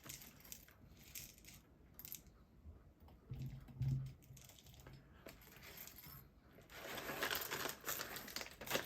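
Whole coffee beans poured into the hopper of a Cafflano Klassic's hand coffee grinder, scattered clicks and rattles of beans falling on beans, with a denser run of pouring near the end.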